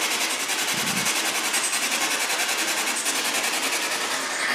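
Steady static hiss chopped by rapid, even pulses, with a short dull knock about a second in.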